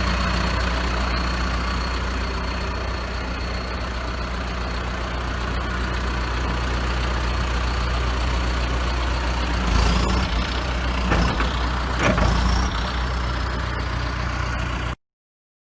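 John Deere 310SJ backhoe's diesel engine running steadily at idle, with a few short clunks and rattles a little past the middle. The sound cuts off abruptly near the end.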